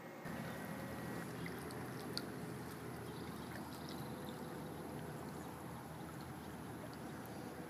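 Swimming pool water running steadily over an infinity edge, an even rushing that starts suddenly just after the beginning. A single sharp tick about two seconds in.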